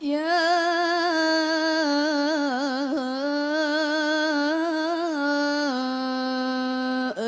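A young female voice chanting Quran recitation (qiroah) in the melodic, ornamented style through a microphone. One long, drawn-out phrase with wavering ornaments settles onto a lower held note about three quarters of the way through, then breaks off briefly near the end.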